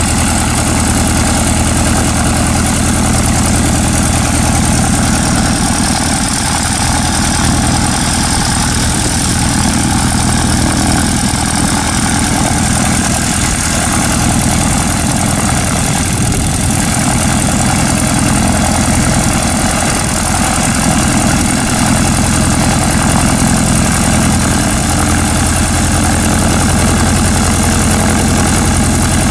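Gerle-2 biplane's piston engine idling steadily on the ground, propeller turning.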